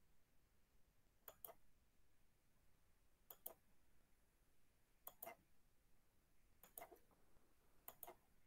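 Near silence broken by faint double clicks, five quick pairs spaced about one and a half seconds apart.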